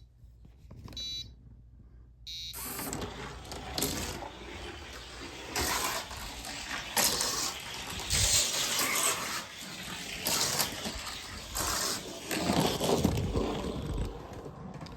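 Electronic race-timer beeps in the first couple of seconds, then a die-cast Johnny Lightning toy car rattling and rumbling down a long gravity race track for about twelve seconds, its run timed at 11.44 seconds.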